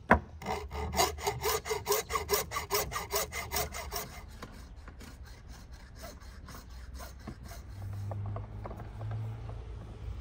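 A sharp knock, then a hand saw cutting in quick, even strokes, about four a second, which stop after some three seconds.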